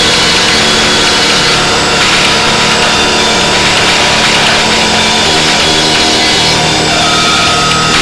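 Drone and harsh noise music: a loud, dense wall of noise with steady held tones running through it and no beat.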